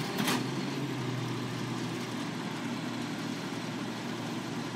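Heavy flatbed truck's engine idling steadily, with a short sharp clack just after the start.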